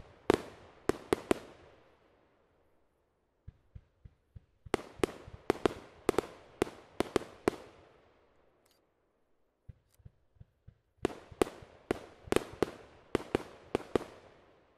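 Aerial fireworks going off in three volleys of sharp bangs, several to a second, each bang trailing off in an echo. Between the volleys come faint, low thumps from shots being launched.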